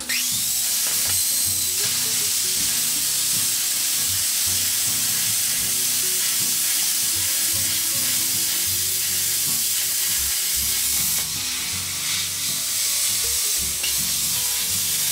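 Plasma cutter cutting 5 mm steel plate on air from an external compressor at about 4 bar: a loud, steady hiss of air and arc that starts abruptly as the arc strikes, wavering briefly about two-thirds of the way through.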